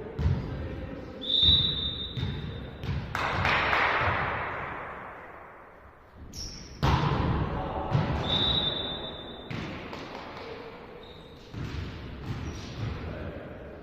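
Indoor volleyball play: the ball struck and thudding on the court, and a referee's whistle blown three times, the first one long. Two louder noisy swells, about three and seven seconds in, fade away slowly in the hall's echo.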